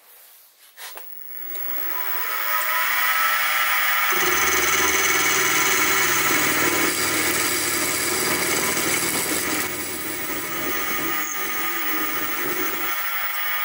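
Sieg SX2P mini-mill running an 11 mm four-flute end mill at just under 1000 RPM, cutting the side of a metal workpiece in light 10-thou passes: a steady machine whine and cutting hiss that builds over the first two seconds, with a lower rumble joining about four seconds in.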